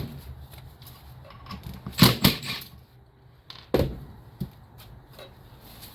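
Handling knocks from an aftermarket motorcycle exhaust muffler being turned over and inspected: a few short clunks, the loudest cluster about two seconds in and another near four seconds.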